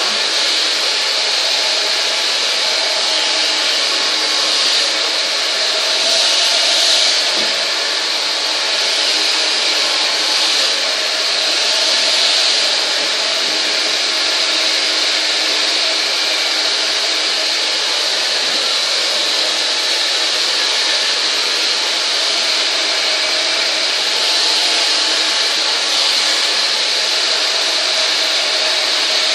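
Hand-held hair dryer blowing steadily at close range: a constant rush of air with a faint motor hum underneath, swelling a little as the dryer is moved over the hair.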